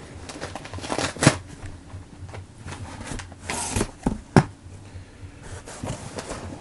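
A mail package being opened and handled by hand: rustling, scraping and crinkling of packaging, with two sharp knocks, about a second in and just after four seconds in.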